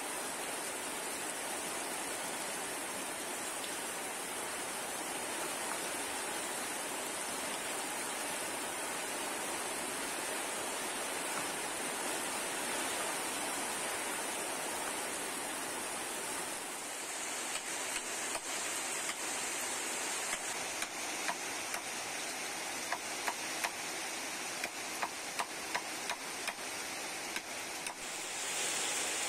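Steady hiss of rain. A little past halfway, sharp taps of a machete striking bamboo on a wooden block join in, about two a second, growing louder near the end.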